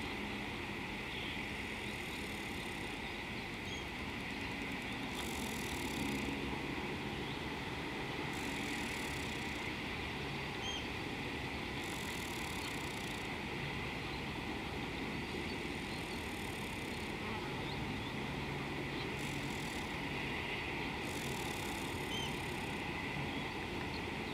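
Steady outdoor ambience by the water: a continuous hiss and low rumble, with a high hiss that swells for about a second every few seconds and a few faint, short bird chirps.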